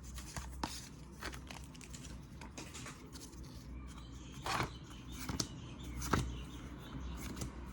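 Soft rustles and light clicks of Pokémon trading cards being handled and flicked through, with a few sharper taps about four and a half, five and a half and six seconds in.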